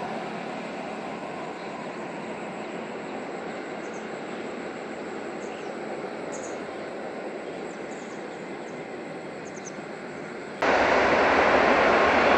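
Jet engines of a Kuwait Airways Airbus A330-200 heard from a distance as the airliner moves onto the runway: a steady rushing noise that jumps abruptly louder about ten and a half seconds in.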